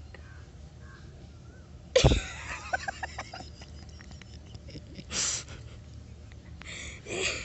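Baby sneezing: one sudden loud sneeze about two seconds in, then shorter breathy bursts of breath a few seconds later.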